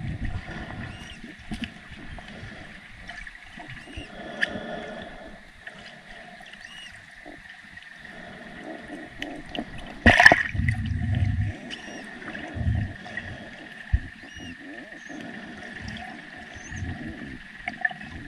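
Florida manatees squeaking and squealing underwater, short high chirps repeating throughout, over gurgling water and low rumbles. There is a loud burst of noise about ten seconds in.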